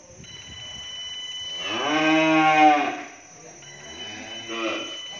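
Young beef cattle mooing in a pen: one long moo about two seconds in, then a shorter, quieter moo near the end.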